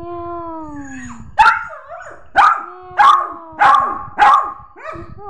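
Small curly-coated poodle-type dog giving a long falling whine, then barking five times in quick succession, about one bark every half second to second. A couple of softer yips come near the end.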